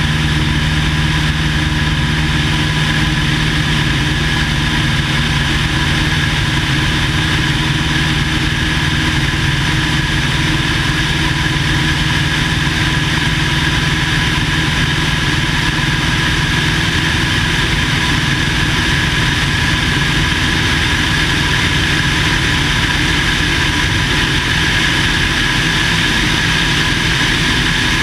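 1950 Cessna 170A's six-cylinder Continental engine and propeller running at a steady, unchanging power setting.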